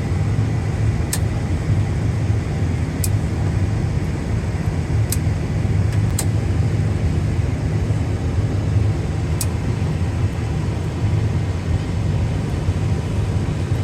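Tractor engine running steadily, with a few short sharp clicks at uneven intervals over it.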